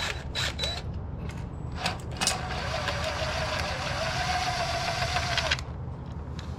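A handheld power tool's small motor runs for about three seconds with a steady whine and a scratchy hiss, then cuts off. It is preceded by a few light clicks and knocks.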